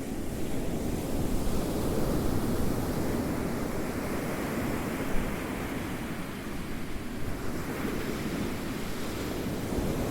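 Ocean waves rolling and breaking in a continuous surf wash, swelling and easing over several seconds.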